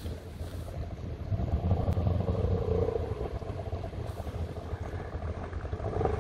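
Mercury 50 hp outboard with a water-jet drive running at low speed and gaining revs about two seconds in, and again near the end, as the inflatable boat carrying about 400 kg, bow fully loaded, gets under way.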